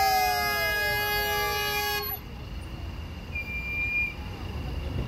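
A passing car's horn is held in one long blast that cuts off suddenly about two seconds in, with whooping shouts sliding down in pitch over it. After that there is traffic going by and a brief high beep near the middle.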